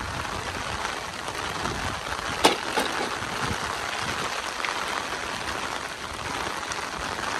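Heavy rain falling steadily, with one sharp knock about two and a half seconds in.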